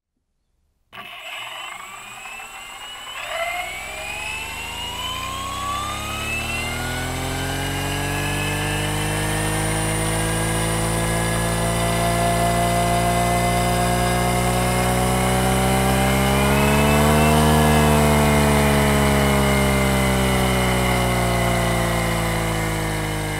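Combat robot's spinning weapon running up: a whine whose pitch climbs steadily for about sixteen seconds as the spinner gains speed, peaks, then slowly falls as it winds down.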